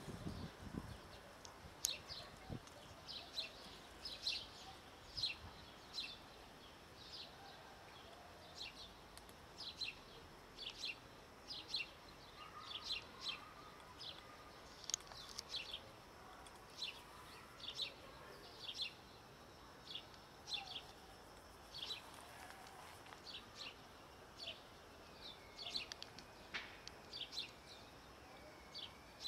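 Small birds chirping: short, high chirps repeating about once or twice a second, with a few looping whistled notes near the end.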